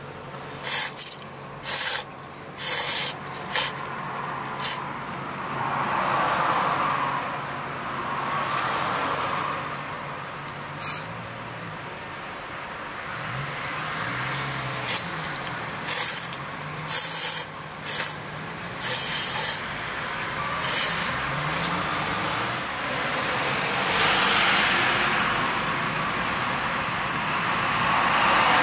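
A person slurping ramen noodles: repeated short, sharp hissing sucks, several in quick succession at a time. Road traffic swells past in the background twice.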